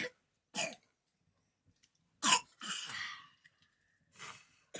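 A person coughing several times in short, harsh bursts, the loudest about two seconds in, followed by a longer rasping cough.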